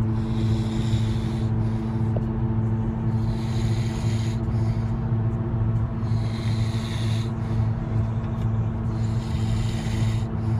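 A man snoring in his sleep, one noisy breath about every three seconds. Under it runs the steady hum of the moving car.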